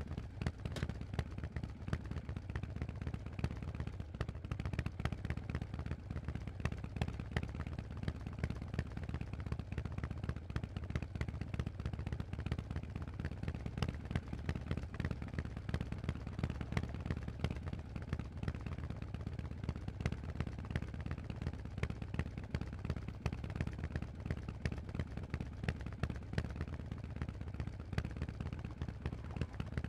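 Harley-Davidson Forty-Eight's 1200 cc V-twin running through Vance & Hines aftermarket exhausts: a dense, rapid string of sharp exhaust pulses over a steady low drone, with little change in engine speed.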